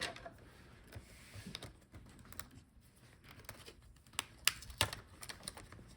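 Faint, scattered small clicks and taps of hands and tools working on the open laptop, as the I/O board's cable connector is unplugged from the motherboard; a few sharper clicks come near the end.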